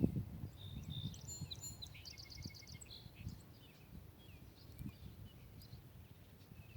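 Small birds chirping, with a few quick trills in the first half, over a faint low rumble.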